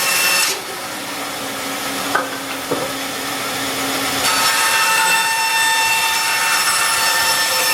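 Band saw running and cutting. Its sound drops and eases from about half a second in, with two short knocks, and picks up again about four seconds in.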